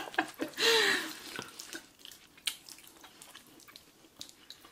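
Close-up wet mouth sounds of people eating saucy spaghetti: a short slurp about half a second in, then scattered soft smacks and clicks of chewing.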